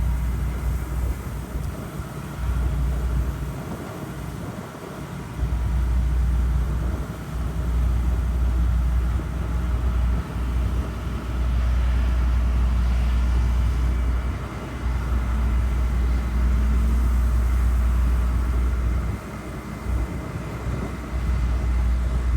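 Tractor engine running on the road, with wind rumbling across the microphone in gusts that swell and drop away several times.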